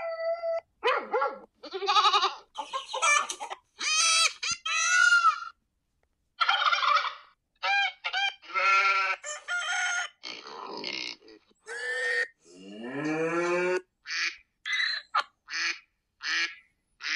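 A rapid string of many different farm animal calls, one after another with short pauses between them; the last few seconds are a run of shorter, higher calls.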